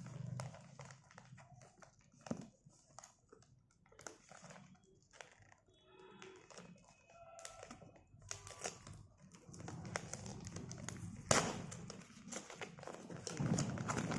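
Gift packaging being handled and opened by hand: crinkling, rustling and scattered taps and clicks, with one louder knock about three-quarters of the way through.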